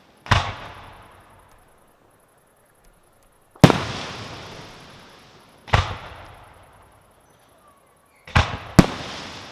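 Aerial firework shells bursting overhead: five sharp bangs, each trailing off over a second or two. The last two come close together near the end.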